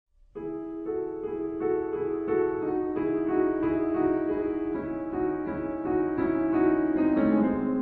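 Slowed-down piano music entering about half a second in, with chords struck in a slow, even pulse.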